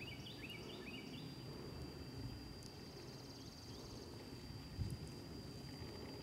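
Outdoor field ambience: small birds chirping in a quick run of short calls during the first second or so, over a rough low rumble of wind on the microphone. A faint steady high tone runs throughout, a fast buzzing trill comes a little past the middle, and there is a single brief thump about three-quarters through.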